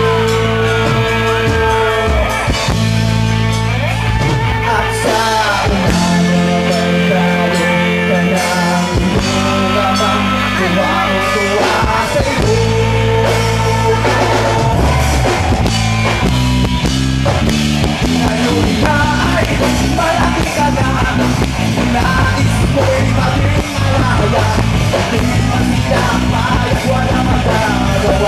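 Live rock band playing loud, with distorted electric guitars, bass and drums and a male voice singing over them. About sixteen seconds in, the bass shifts to a faster, choppier line.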